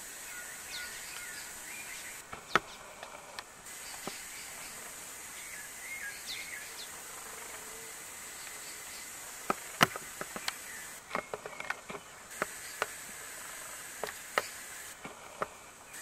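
Short, high chirping calls of common waxbills in the first half, over a steady high-pitched insect drone. In the second half, a run of sharp, irregular clicks.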